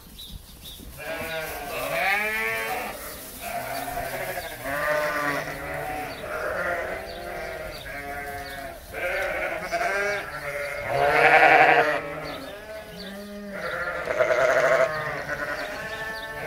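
A flock of ewes bleating, many calls overlapping one after another from about a second in, the loudest a little past the middle.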